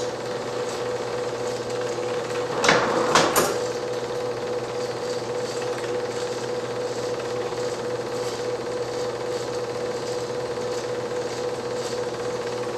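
8mm film projector running: a steady mechanical hum with a light, even clatter from the film mechanism. Two loud knocks come close together about three seconds in.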